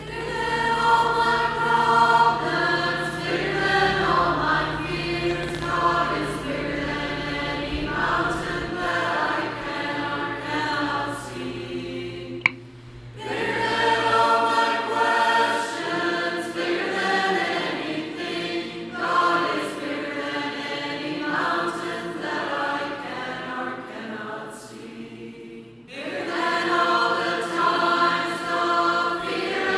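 A choir singing as background music, in long phrases with brief pauses about 13 and 26 seconds in. A single sharp click comes just before the first pause.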